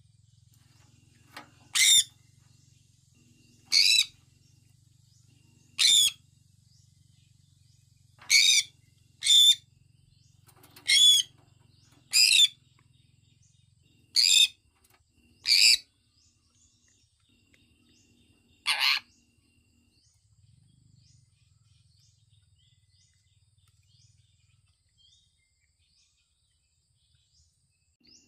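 Sun conure calling: about ten loud, shrill calls, each under half a second, coming every one to two seconds, then only faint soft chirps for the last nine seconds or so.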